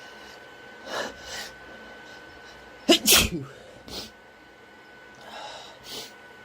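A man's allergy sneeze: one loud, forceful sneeze about three seconds in, with quieter breathy sounds before and after it.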